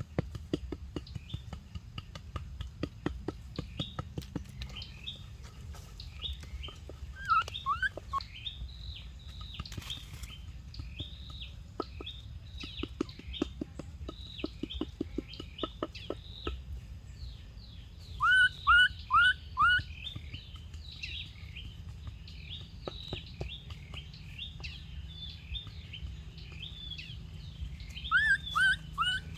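Birds chirping continuously with many small high notes, mixed with faint clicking. Louder, short, hooked calls stand out: a group of four about two-thirds of the way in and three more near the end.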